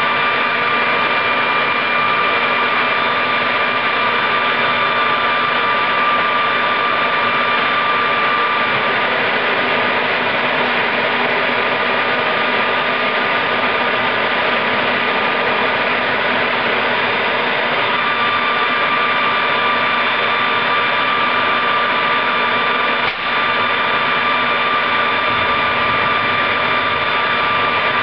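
Homemade turbojet built from a Caterpillar turbocharger running steadily: a loud rush of air with a steady high whine from the spinning compressor wheel. The sound dips briefly once about 23 seconds in.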